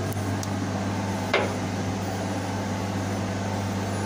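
Steady low hum of engine-room machinery. A short falling squeak comes about a second and a half in.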